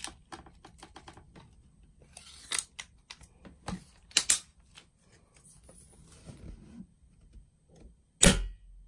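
Small clicks and rattles of a spring-powered VSR-10 bolt-action airsoft rifle being handled and readied, then, about eight seconds in, one loud shot as it fires a BB through a chronograph for a muzzle-velocity test.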